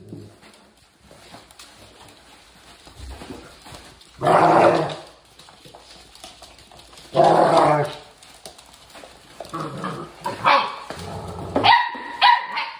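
Pit bull and pit bull puppies barking during rough play: two loud barks about four and seven seconds in, then a string of shorter, higher yaps near the end.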